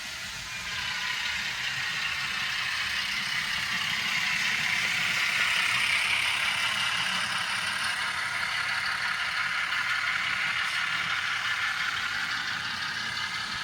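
Model trains running on the layout's track: a steady rattling whir of metal wheels on rail and small electric motors, growing louder around the middle as a train passes close.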